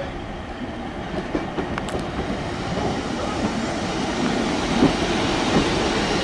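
Class 150 Sprinter diesel multiple unit pulling slowly into the platform, its engine and wheel noise growing louder as it comes alongside, with a few sharp wheel clicks on the rail joints.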